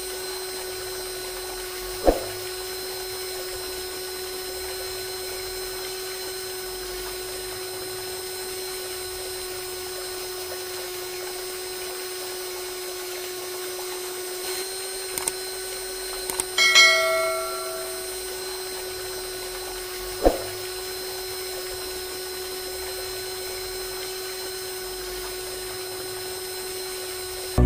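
A small motor running with a steady high whine. A single metallic ding rings out and dies away about 17 seconds in, and there are two short clicks, one about 2 seconds in and one about 20 seconds in.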